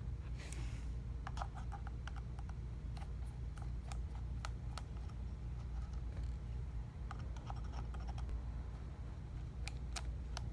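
Small tools and phone parts clicking and tapping irregularly during iPhone 6s disassembly, with a short scrape near the start. A steady low hum runs underneath.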